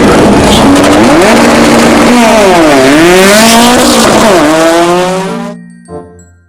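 Race car sound: loud engine and road noise with squealing tyres whose pitch dips and rises twice, fading out about five and a half seconds in.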